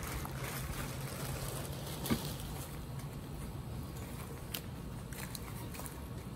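Steady low mechanical hum, like a distant engine or traffic, with a sharp click about two seconds in and a few faint ticks later.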